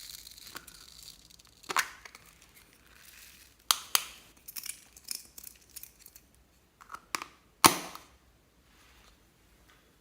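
Glossy slime being pressed and worked by hand, giving irregular sharp sticky pops and crackles, the loudest one about three-quarters of the way through.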